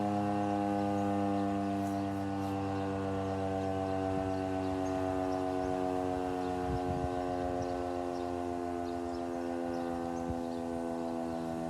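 Federal Signal 2001-130 electromechanical outdoor warning siren sounding a steady tone, its pitch sagging slowly as it runs.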